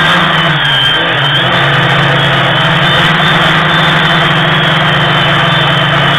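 DJI Phantom quadcopter's four electric motors and propellers heard from on board, a loud steady buzzing hum whose pitch wavers slightly about a second in as the motors adjust.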